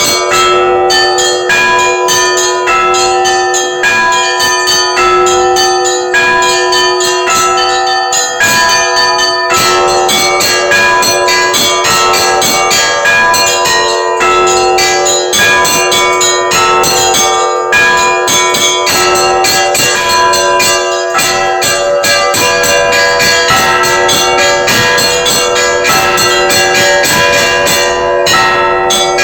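Orthodox cathedral bells rung together, heard up close in the belfry: small bells struck in a fast, continuous pattern over the steady ringing tones of the larger bells.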